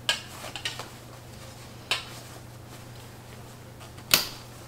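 Sharp plastic clicks and knocks from the bassinet's frame and clips as the parts are fitted together: a few near the start, one about two seconds in, and the loudest a little after four seconds. A steady low hum runs underneath.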